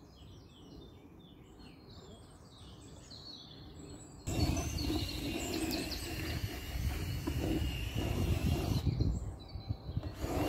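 Outdoor ambience: small birds chirping faintly, then about four seconds in a sudden jump to a much louder rushing noise with a low rumble and a thin steady high tone over it.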